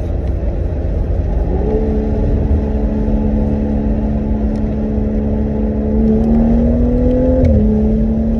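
Straight-piped BMW M4's twin-turbo straight-six heard from inside the cabin while driving: a low rumble with a droning engine note that comes in about a second and a half in, climbs slowly, and drops about seven and a half seconds in.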